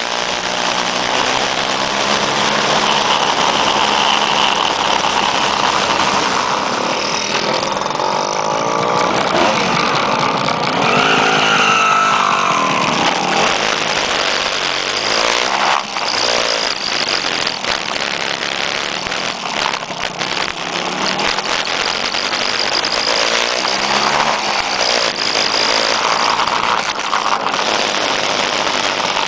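Several small two-stroke scooter engines running and revving up and down as a group of vintage scooters rides along.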